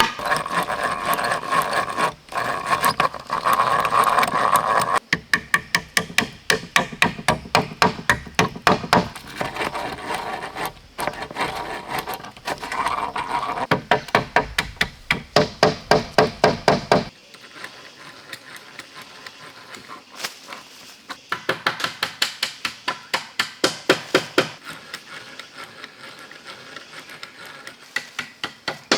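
A hand tool striking wood repeatedly, in quick runs of about three blows a second broken by short pauses. The blows are lighter after about 17 seconds in.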